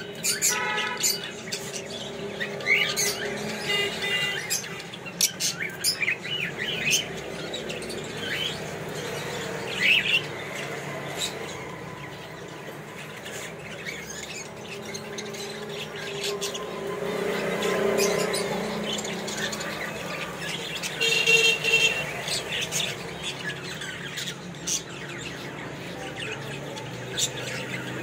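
A group of Fischer's lovebirds chirping and squawking in a cage: many short, sharp chirps scattered throughout, with a few louder calls, the loudest about ten seconds in and again a little past twenty seconds.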